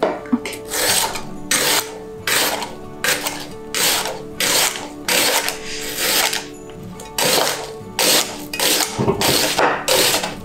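Chef's knife slicing through an onion onto a wooden cutting board: a steady run of crunching cuts, about three every two seconds, over background music.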